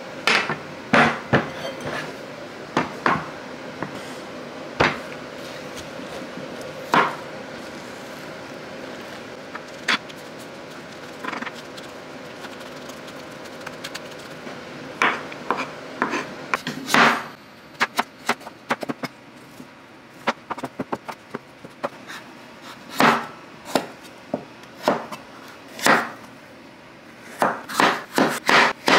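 Kitchen prep sounds: a knife knocking on a wooden cutting board with scattered clinks of utensils and dishes, then quick steady chopping, about three strokes a second, near the end. A steady hum runs underneath and stops about two-thirds of the way through.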